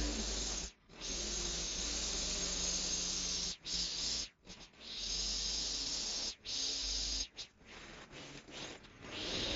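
String trimmer spinning its line against grass along a path edge, a steady hissing whir that breaks off abruptly several times.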